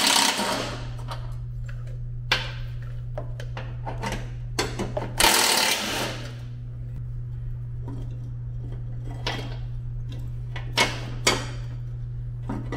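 Cordless power driver running in short bursts to back out the bolt holding the mower deck's blade-engagement idler arm, with the longest runs near the start and about five seconds in, and metal clinks between them as the parts are worked loose. A steady low hum runs underneath.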